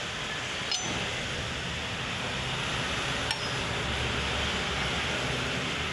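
Two light metallic clinks, about a second in and again a little past three seconds, over a steady hiss of workshop background noise.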